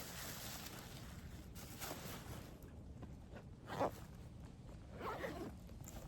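Short rasping, rustling scrapes, a second or two apart, the loudest a little before the middle.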